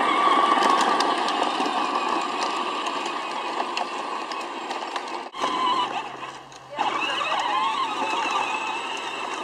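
Peg Perego John Deere Ground Force battery-powered ride-on toy tractor driving along pavement: a steady whir from its electric drive motors and gearbox, with its tyres rolling on the asphalt. About five seconds in the sound drops out briefly and picks up again a little quieter, with a wavering whine.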